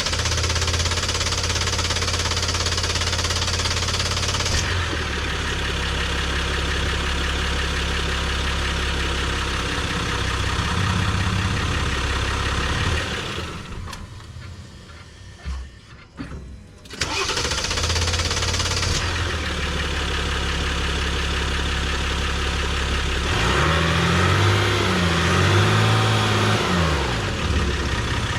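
Jeep Gladiator EcoDiesel 3.0 L V6 turbodiesel running just after being started on a freshly replaced and primed fuel filter. It goes quiet about thirteen seconds in, starts again about four seconds later, and near the end its speed rises and falls a few times.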